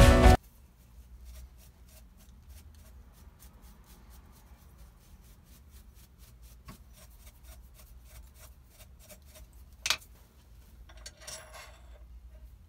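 Music cuts off in the first half second. Then faint clicks and rubbing as small metal parts, a reaming tool and a pistol slide in a bench vise, are handled, with one sharper metallic click about ten seconds in and a short scrape a second later.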